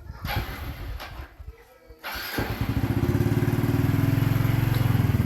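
Some clattering, then a small motorcycle engine starts about two seconds in and settles into a steady, rapidly pulsing idle.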